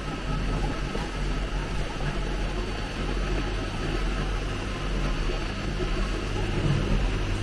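Steady machine-shop hum and hiss from running machinery, with a faint steady high whine over it.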